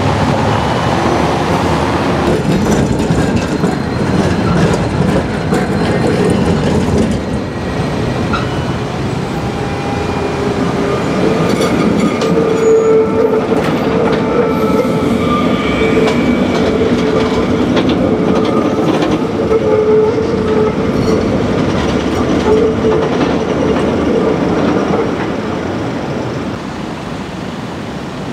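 Articulated tram passing close by on street track, its wheels and motors running steadily, with a steady whining tone for about twelve seconds in the middle. The sound fades down near the end as the tram moves away.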